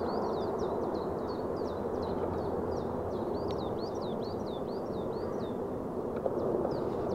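A small bird calling in a rapid, continuous series of short, high, down-slurred chirps, several a second, over a steady low rushing noise.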